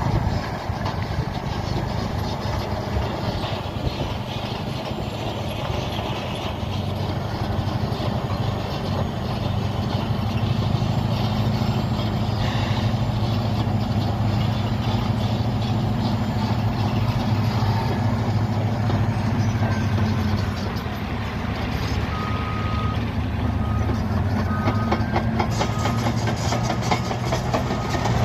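Caterpillar D7E bulldozer's diesel engine running steadily under load, with the clatter of its steel tracks. In the last few seconds a backup alarm beeps several times.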